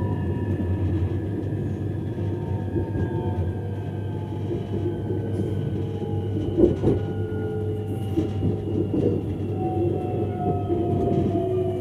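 X31 electric multiple unit rolling over the rails with a steady rumble, its traction motor whine falling slowly in pitch as the train slows into a station. A single sharp knock from the wheels sounds a little past halfway.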